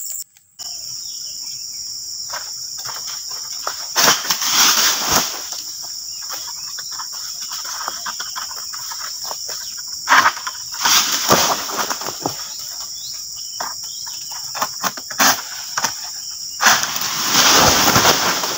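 A steady high drone of insects (crickets or cicadas) in an oil palm plantation, broken by three loud rustling, scraping bursts, about four seconds in, around ten to twelve seconds, and near the end, as a long-pole egrek sickle cuts through palm fronds and they come down through the leaves.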